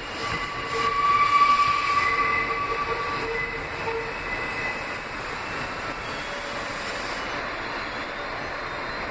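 Kawasaki R160B subway car heard from inside while running on the rails: the wheels squeal in steady high tones for the first three or four seconds, then give way to the car's even running noise.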